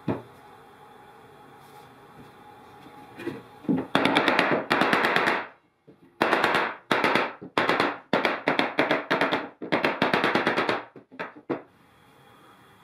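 Gloved hands working wood glue over plywood and a wood block: a run of short rubbing strokes, each a rapid rattling chatter, with a single click at the very start.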